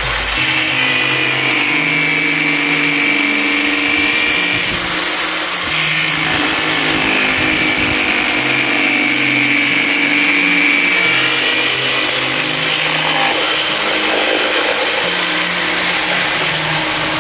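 Corded electric drill spinning a small cutting disc through a dry coconut shell: a steady motor whine with the rasp of the blade cutting the shell.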